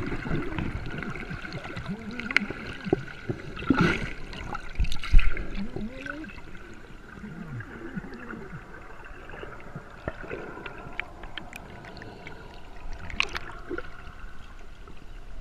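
Water gurgling and splashing, with two sharp knocks about four and five seconds in, the second the loudest, and faint voices in the background.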